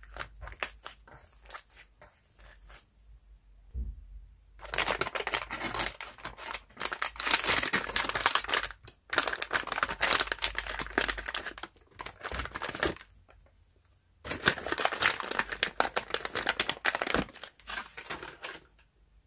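Loud crinkling and rustling of a glossy plastic pouch of Iclay air-dry clay as a hand reaches into it, in two long stretches. Before and after, softer sticky clicks of slime being kneaded and pressed.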